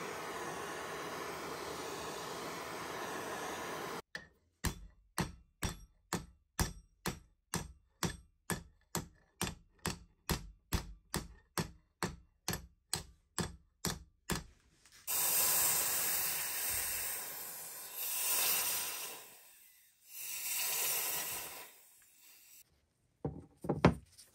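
Handheld gas torch hissing steadily as its flame heats an iron horseshoe, cut off about four seconds in. Then about twenty evenly spaced hammer blows, roughly two a second, on the heated horseshoe over an anvil, followed by a few seconds of rushing noise and a couple of sharp knocks as the horseshoe is set down on the bench.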